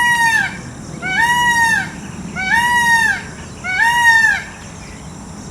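Peacock calling: four loud calls about 1.4 s apart, each briefly rising and then falling in pitch. The calls end a little over halfway through, leaving a steady low background noise.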